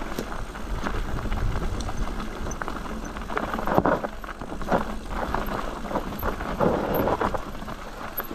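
Mountain bike picking its way over rock and gravel: tyres scraping and crunching on stones, with scattered knocks and rattles from the bike, as the rider tries a nose turn on the front wheel.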